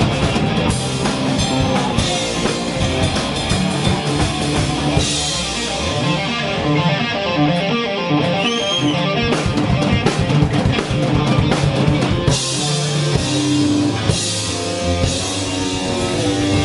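Live rock band playing an instrumental passage: electric guitar through a Marshall amp, bass guitar and drum kit, with heavier cymbals through the middle.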